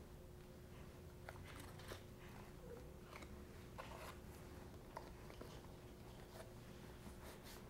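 Faint rustling and crinkling of a paper box of mochiko rice flour as the flour is poured out of it into a stainless steel bowl, with scattered soft ticks.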